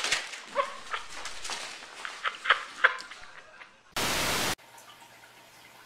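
A few short, sharp sounds over the first three seconds, the loudest two close together about two and a half seconds in. About four seconds in comes a half-second burst of television-style static hiss.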